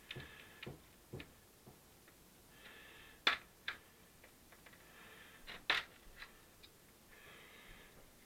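Sharp plastic clicks and short scratchy scrapes from a Dynabook laptop's bottom cover being worked off by hand. The two loudest clicks come about a third and two-thirds of the way through.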